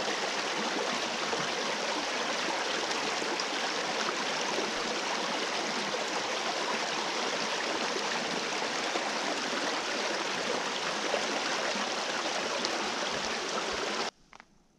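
Flowing stream water, a steady even rush that cuts off suddenly near the end.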